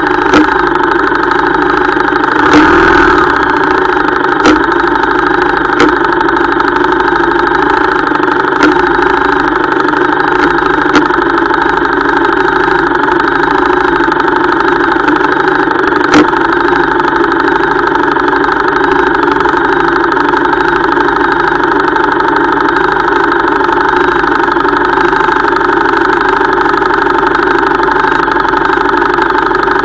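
Harley-Davidson Street Rod 750's V-twin engine idling steadily. There is a brief louder swell about three seconds in, and a few sharp clicks are scattered through.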